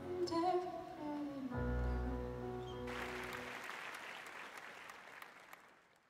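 A live band's song ends: a last sung phrase over held keyboard chords, then a deep final chord. Audience applause breaks in about three seconds in and fades out.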